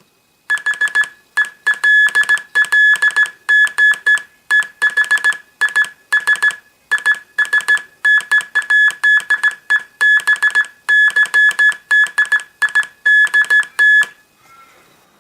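Homemade Morse code practice oscillator sending a high, steady beep tone, keyed on and off in short and long pulses (Morse dots and dashes). It stops near the end.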